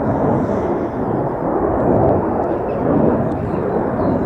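Loud jet roar of a USAF F-15 fighter's twin engines as it flies past in the landing circuit, a dense rumble that swells and eases.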